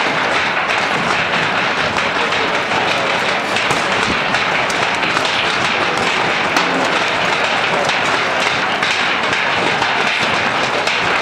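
Steady, loud din of a street clash between protesters and riot police, with scattered sharp bangs and knocks; one crack stands out about six and a half seconds in.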